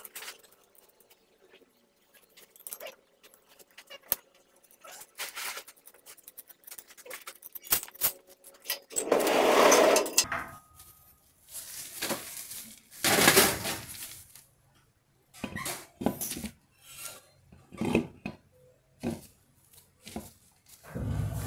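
Hands handling metal parts: light clicks and clinks of the axle's brake-disc hub and wheel studs, then an ATV wheel being fitted onto the hub, with several louder scraping and rubbing bursts in the second half.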